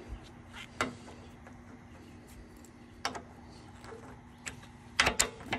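Hydraulic quick-connect coupler being pushed onto its fitting on a track loader's auxiliary hydraulics: a few single metal clicks, then a quick cluster of sharp clicks near the end as the coupler snaps on.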